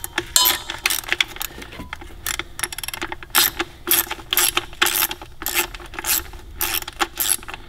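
Socket ratchet clicking in short, irregular runs as the small bolts holding the coil cover on an HEI distributor cap are backed out.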